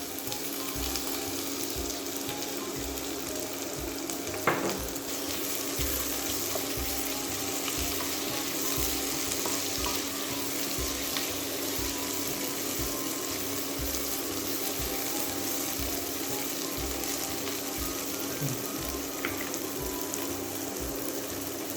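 Bell peppers and tomatoes frying with onion and garlic in olive oil in a pan, a steady sizzle over a low hum. One sharp knock comes about four and a half seconds in.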